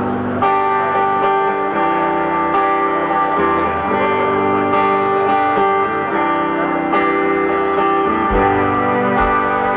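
Live rock band playing through a festival sound system, with electric guitar chords ringing out steadily. Low thumps come in about eight seconds in.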